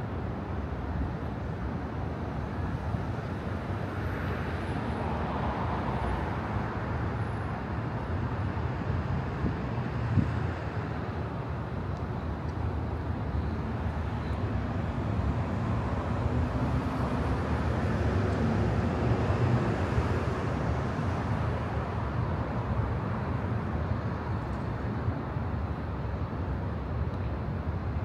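City street ambience: a steady rumble of traffic and general outdoor noise, with a single short knock about ten seconds in.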